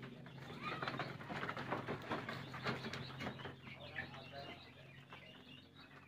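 Pigeons cooing and small birds chirping inside a sheep shed over a steady low hum, with a run of knocks and clatter from about a second in to about three and a half seconds, fading after.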